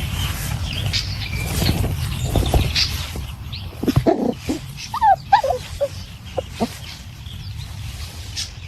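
Wolf pups giving several short, falling whimpers and yips, mostly about five to seven seconds in, over a steady low rumbling noise.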